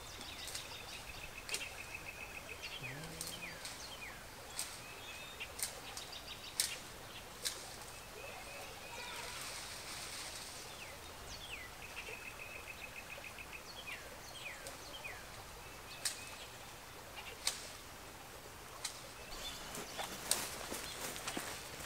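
Songbirds singing: repeated rapid trills and short downslurred chirps over a steady background hiss, with scattered sharp ticks.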